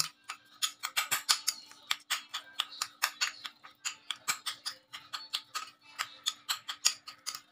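Metal spoon clinking and scraping against a ceramic bowl while mashing tofu and salted egg, in a quick irregular run of sharp clicks, several a second.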